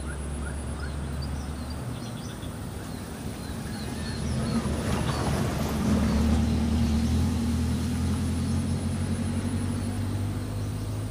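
A steady engine drone, growing louder about halfway through and then easing slightly, with small birds chirping.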